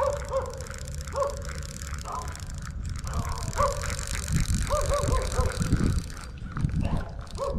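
A dog barking repeatedly in short, pitched barks, often two in quick succession, with wind rumbling on the microphone.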